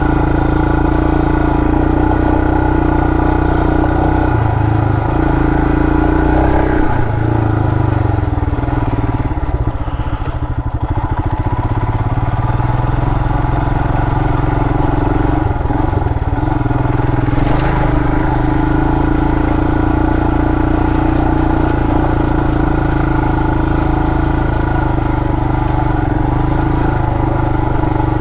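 2020 Royal Enfield Himalayan's 411 cc single-cylinder engine running steadily under way on a rough trail, heard from the rider's helmet microphone. The engine eases off briefly about ten seconds in, then picks back up.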